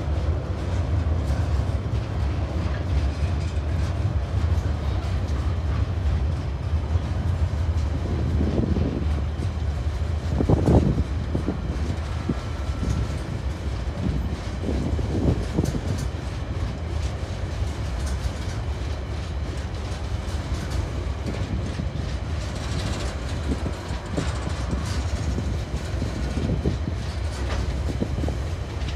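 Freight train wagons loaded with logs and shipping containers rolling across a concrete rail bridge: a steady low rumble of wheels on rails with clickety-clack from the rail joints, and one louder knock about ten seconds in.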